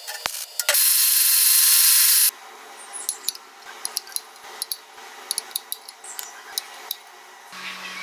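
Workshop sounds of metal parts being worked and handled. About a second in, a loud steady hissing noise lasts about a second and a half. It is followed by light clicks and clinks of steel pieces being fitted together by hand, and near the end a steady low hum starts.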